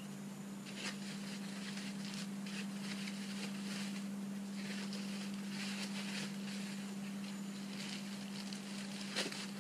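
Clear plastic packaging sheet rustling and crinkling as it is pulled off a new motorcycle windshield, with a sharper crackle near the end, over a steady low hum.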